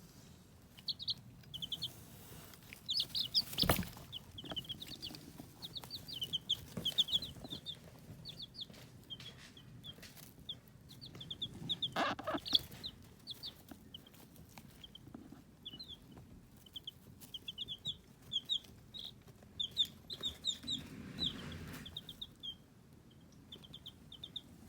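Young chicks, a few weeks old, peeping: short high cheeps in quick runs, with a sharp knock about four seconds in.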